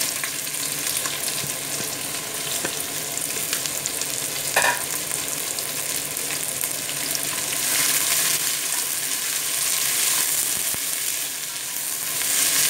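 Sliced onions sizzling in hot ghee in a stainless steel pressure cooker, just after being tipped in, with chicken frying in a pan beside it. A short knock comes about a third of the way in, and the sizzle swells near the end as a spatula starts stirring the onions.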